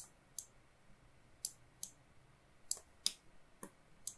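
Computer mouse button clicking: about eight short, sharp clicks in four pairs, each pair a button press and release around a sculpt brush stroke.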